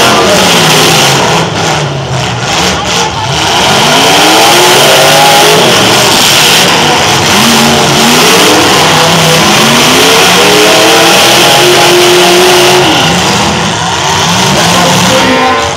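Demolition derby car engines revving hard, their pitch rising and falling again and again, over a steady loud din.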